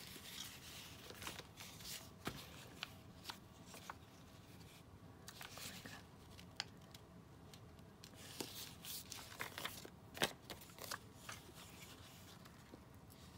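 Faint paper rustling with scattered light taps and clicks as paper pieces for a journal page are handled and glued down.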